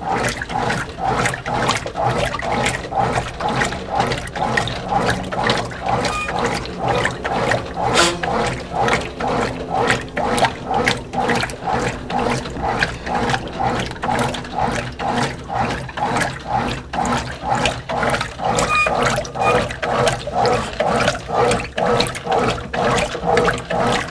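Whirlpool WorldWasher top-load washing machine agitating a large load: the agitator swishes the water back and forth in an even rhythm of about two strokes a second, with the motor and transmission working under each stroke.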